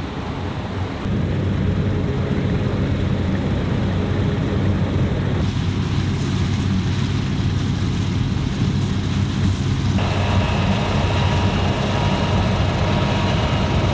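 Combine harvester running in the field, a steady low engine and machinery drone. Its tone shifts abruptly about a second in, around the middle, and again about two-thirds of the way through.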